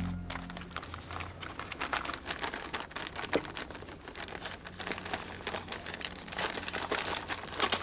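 Wrapping paper crinkling and rustling in many quick, irregular crackles as a small gift is unwrapped by hand.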